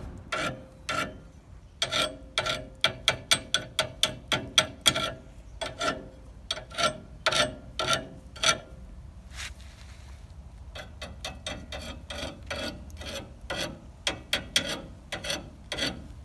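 Hand tool working on metal: a fast run of short sharp strokes, about four a second, then a brief pause and slower, quieter strokes.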